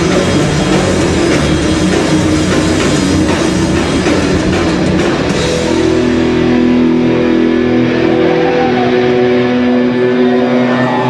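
Live heavy rock band playing loud: distorted electric guitars, bass and a drum kit. About halfway through, the dense playing gives way to long held notes ringing on.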